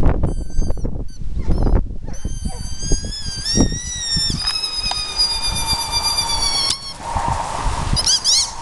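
Australian shepherd whining in excitement: a few short high-pitched whines, then one long steady whine that cuts off with a sharp snap as the homemade slingshot lets the toy go. Short yips near the end as the dog runs after it, over low wind rumble.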